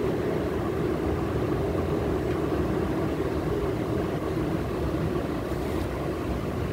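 Steady low mechanical drone, like a running engine or motor, unchanging throughout.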